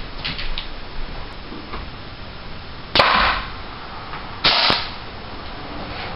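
Pneumatic nail gun on an air hose firing twice, about a second and a half apart: two sharp cracks, each with a brief puff of noise after it.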